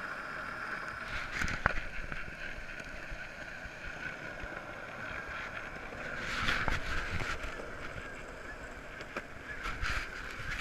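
Longboard wheels rolling on a concrete path, a steady rolling noise with a constant whine-like band. A sharp click comes about one and a half seconds in, and the noise gets louder and rougher around six seconds in.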